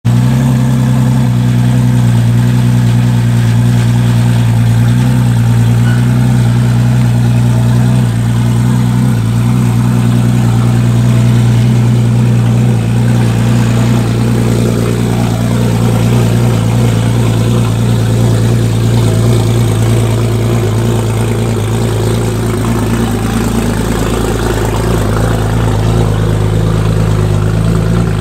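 Tuned Nissan GT-R R35's twin-turbo V6 idling steadily.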